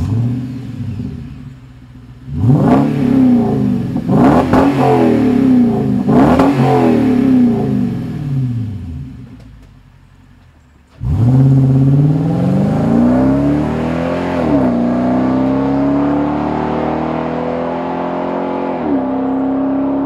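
Toyota Tundra V8 through an SPD equal-length true-dual 3-inch stainless exhaust with X-pipe and straight-through mufflers. It idles, then is blipped three times in quick succession before settling. About halfway through it comes in loud under acceleration, its pitch climbing and dropping sharply twice as it shifts up.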